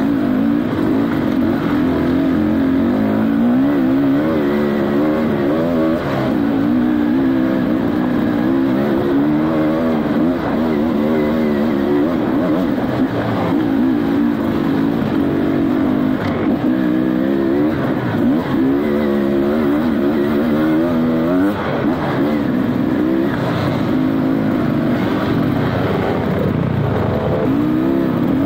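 Dirt bike engine being ridden hard, revving up and down over and over, its pitch climbing and dropping every second or two.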